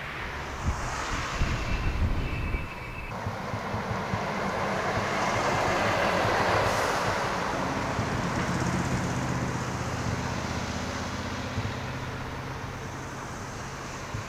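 Heavy lorry driving past: tyre and diesel engine noise swells to a peak about six seconds in and slowly fades, leaving a low engine drone. The sound changes abruptly about three seconds in.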